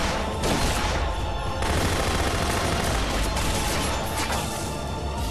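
Rapid, overlapping gunshots from pistols and rifles in a staged film gunfight, over a dramatic music score; the shooting dies away near the end while the music carries on.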